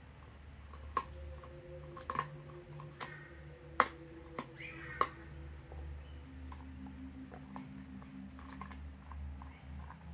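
A Belgian Shepherd dog gnawing a raw meaty bone: sharp cracks and crunches of bone between its teeth, four loud ones in the first five seconds and quieter chewing clicks after.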